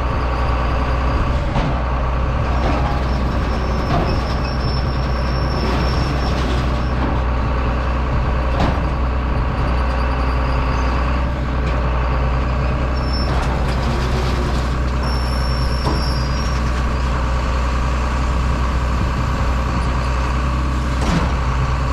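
John Deere 7460 cotton stripper running steadily at working speed, its diesel engine and stripping machinery holding one even, unchanging drone.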